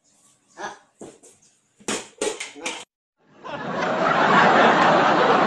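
Laughter in short bursts, with a run of quick evenly spaced 'ha' pulses about two seconds in. A loud, steady wash of noise sets in at about three and a half seconds.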